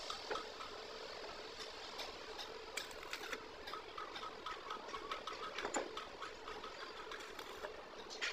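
Stick (arc) welding on a steel track-roller collar: the electrode's arc crackles and sizzles steadily, with rapid small pops.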